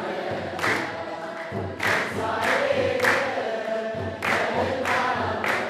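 Ethiopian Orthodox church choir singing a hymn, with repeated sharp percussive hits through the singing.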